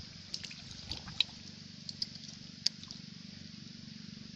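Scattered sharp clicks and small wet splashes from a hand moving in shallow mud and water, over a steady low hum.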